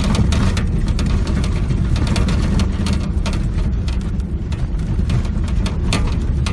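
Vehicle driving over a rough, snow-covered dirt track, heard inside the cab: a steady low engine and tyre rumble with frequent knocks and rattles as the vehicle bounces over the bumps.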